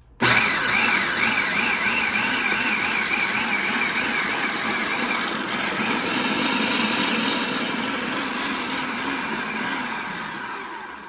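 Electric food processor motor whirring as its blade chops tomatoes into a purée. It starts abruptly and runs on steadily with a slightly wavering whine, easing off a little before it stops right at the end.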